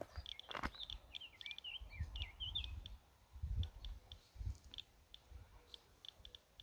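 Faint footsteps on a paved road, with a small bird singing a short twittering phrase in the first few seconds and irregular high ticks scattered through the rest.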